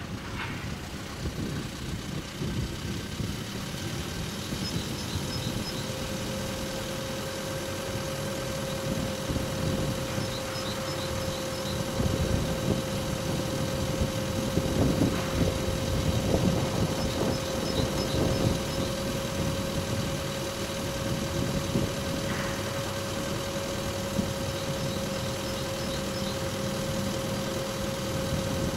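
A steady low rumble like an idling engine. A steady hum joins it about five seconds in and holds, with faint high ticks every few seconds.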